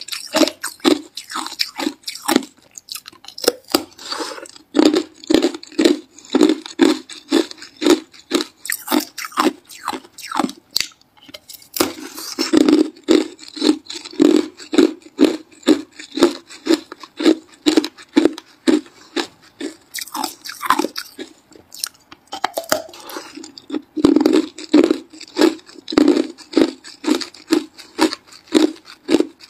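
A chunk of clear hard ice being bitten and chewed close to the microphone: a rapid run of loud, crisp crunches, about two a second, with a few short pauses between bites.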